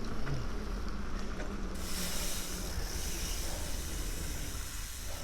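Rushing water of a rain-swollen stream, a hiss that comes in strongly about two seconds in, over a low rumble of wind on the microphone.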